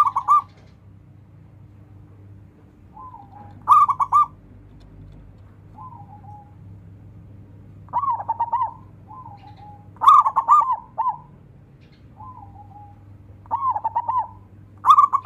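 Zebra dove (perkutut) singing: short bursts of quick, rolling coo notes repeated every two to four seconds, with softer single coos in between.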